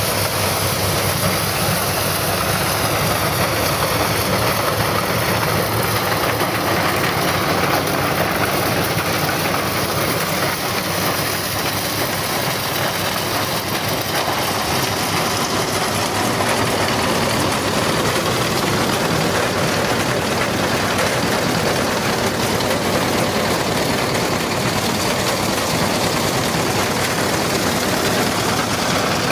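Small diesel tractor engine running steadily, driving a corn sheller that strips the kernels from the cobs, in one loud, even machine noise.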